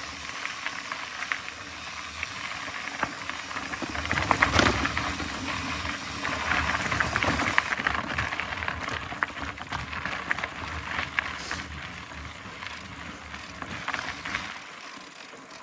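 Mountain bike rolling along a trail: steady tyre and air hiss with the bike rattling and clicking over bumps, loudest in a clattering stretch about four seconds in.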